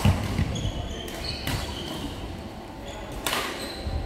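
Badminton rackets hitting a shuttlecock during a doubles rally: three sharp hits, about one and a half to two seconds apart, the first and last the loudest.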